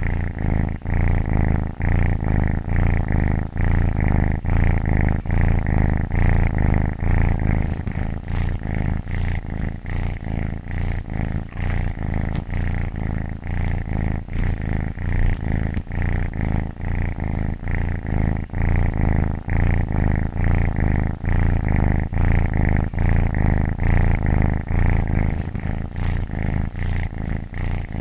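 Domestic cat purring close up: a continuous low, rapidly pulsing rumble that rises and falls in a regular rhythm.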